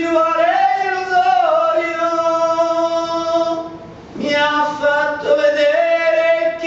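A man singing a bhajan solo: one long held note with a small rise and fall in pitch, a brief pause for breath a little before the four-second mark, then a second drawn-out phrase.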